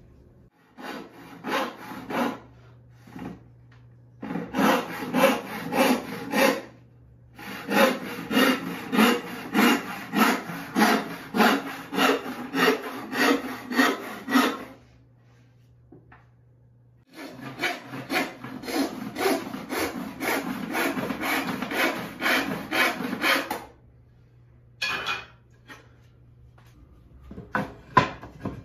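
Handsaw cutting a pine board in steady back-and-forth strokes, about two a second, in several runs with short pauses between. Near the end come a few short wooden knocks.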